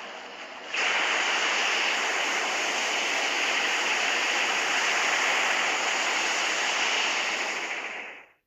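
A steady, loud rushing noise like surging surf or water, from a monster-film sound effect. It starts abruptly about a second in and fades out quickly near the end.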